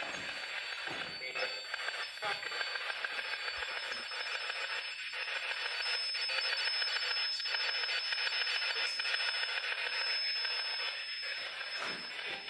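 Radio static: a steady hiss with a fast, even flutter running through it and a thin high whine above.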